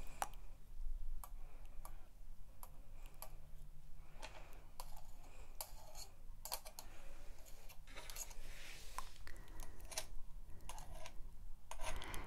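Long pointed silver artificial nails clicking and tapping against each other close to the microphones: irregular sharp clicks a few times a second, with a soft rustle now and then.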